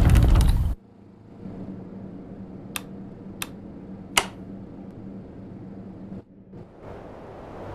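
Household air conditioner running with a steady low hum. A loud rush of noise at the start cuts off suddenly just under a second in, and three sharp clicks come near the middle.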